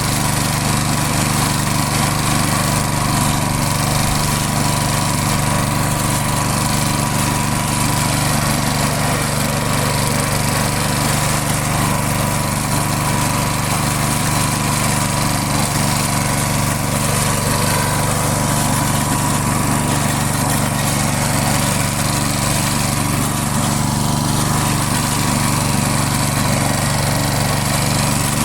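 Briggs & Stratton single-cylinder engine on a push lawn mower running steadily at a constant speed.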